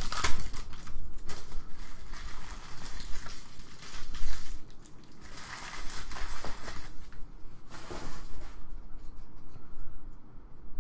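Foil wrapper of a trading-card pack torn open and crinkled near the start, then the rustle and slide of a stack of cards being handled and flipped through in several short spells.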